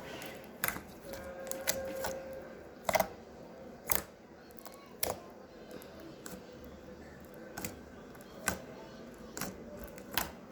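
Slime being squeezed and pressed in the hands, giving sharp pops and clicks at irregular spacing, roughly one a second.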